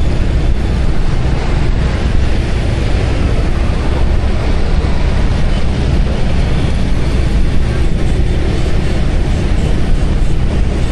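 Loud, steady rumble of riding a motor scooter through town traffic: the scooter's engine, road noise and wind on the microphone blended together.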